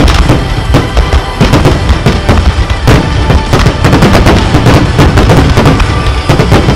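Fireworks shells and crackling effects bursting in quick succession, several sharp bangs a second, with the display's music playing underneath.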